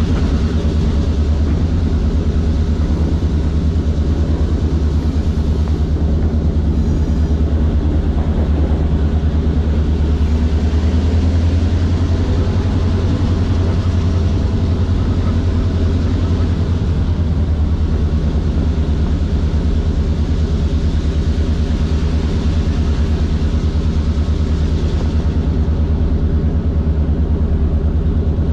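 A CF7 diesel locomotive's EMD 567 two-stroke V16 prime mover running steadily under load as it works up a grade, heard close up from the sand filler hatch.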